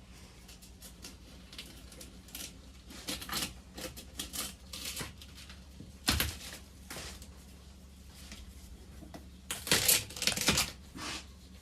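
Gritty scraping strokes and clicks from tile work on porcelain tile, coming in scattered bursts, with a sharp knock about halfway through and a louder run of strokes near the end.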